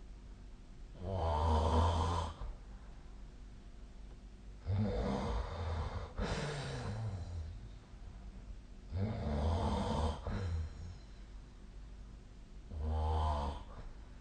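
A sleeping person snoring, four loud snores about every four seconds with quieter breathing between them.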